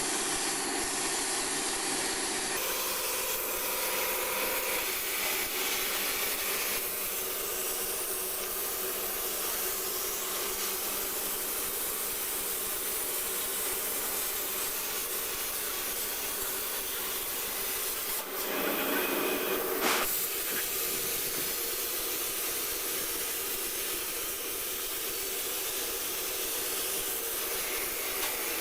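CNC plasma torch cutting stainless-steel sheet: a steady hiss of the plasma arc and air jet, with a brief louder burst about eighteen seconds in.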